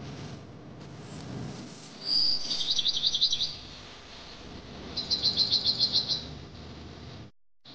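A bird chirping in two short, rapid trills of high notes, about eight a second. The first comes about two seconds in, after a brief whistle, and the second about five seconds in. A faint steady hiss lies underneath.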